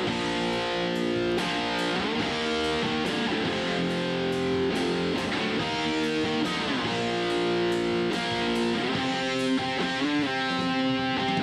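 Multitrack rock mix playing back from the DAW: guitar chords over a steady drum beat, with bass. The guitar channel runs through a 1176-style compressor emulation.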